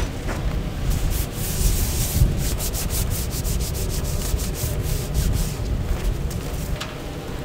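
A run of quick, even rubbing strokes, about four a second, that fades out near the end, over a steady low rumble.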